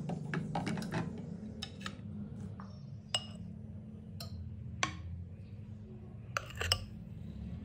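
A metal spoon clinking against a glass mixing bowl and a steel pancake ring mold in a frying pan while thick batter is spooned out: several sharp separate clinks, two close together near the end, over a steady low hum.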